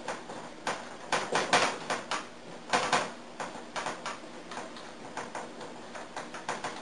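Dry-erase marker writing on a whiteboard: a run of short, scratchy strokes, several a second, coming in uneven clusters as the letters are drawn.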